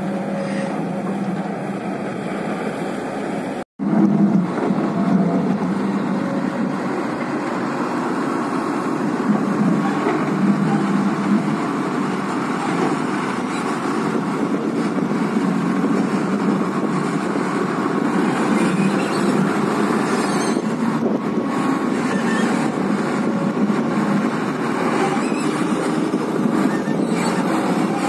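Heavy diesel engines running steadily: first the excavator's engine while it loads soil, then, after a sudden break about four seconds in, the loaded tipper truck's engine as it pulls away.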